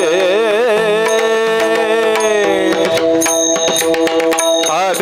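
Devotional Marathi abhang singing: a high voice holds and ornaments a long, wavering note over a steady drone. Pakhawaj drum strokes and cymbal clicks keep time underneath.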